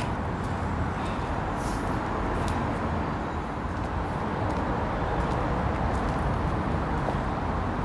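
Steady low rumble of distant road traffic, with no distinct events standing out.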